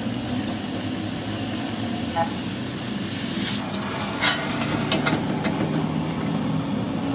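Oxy-fuel cutting torch hissing steadily as it cuts through steel plate; the hiss stops about three and a half seconds in as the cut is finished, followed by a few sharp metallic clinks. A steady low hum runs underneath.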